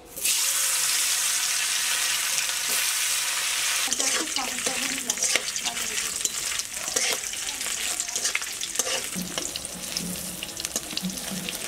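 Coconut strips and eggplant slices sizzling in hot oil in an aluminium kadai. The sizzle starts suddenly as the strips are dropped in and is loudest at that moment. A metal spatula stirs and scrapes the pan, and small sharp crackles run through the frying.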